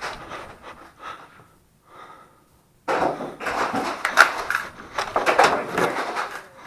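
A person panting heavily close to the microphone. The breathing drops away for about a second around two seconds in, then comes back suddenly and louder.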